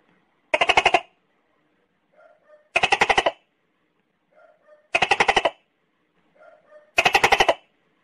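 Tokay gecko calling: four loud calls about two seconds apart, each a faint short note followed by a loud croak made of rapid pulses.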